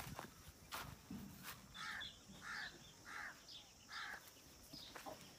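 A bird calls faintly four times in a row, short harsh calls about two-thirds of a second apart, starting about two seconds in. A few faint clicks come before them.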